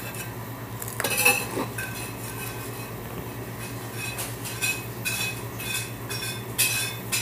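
A metal utensil clinking and scraping against a ceramic plate in a string of short ringing strikes, prying off microwaved potato chips stuck to it, over a steady low hum.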